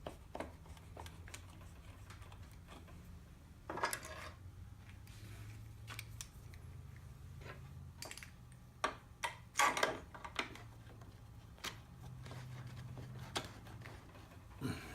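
Clamps being put on and tightened on a wooden belt sander jig: scattered clicks and knocks of clamp parts against wood and metal, the loudest cluster about ten seconds in.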